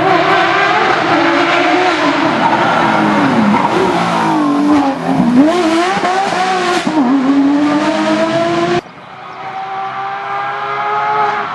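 Porsche 911 GT3 rally car's flat-six engine at full throttle, the revs dropping and climbing again several times through gear changes and lifts. About nine seconds in, the sound cuts abruptly to a quieter run of the engine, its note rising steadily.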